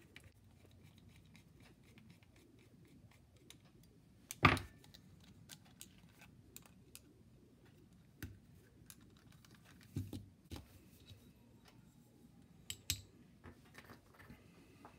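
Small aluminium parts, screws and hand tools being handled on a towel-covered bench: scattered light clicks and metallic clinks, with one sharper knock about a third of the way through and a few smaller knocks later.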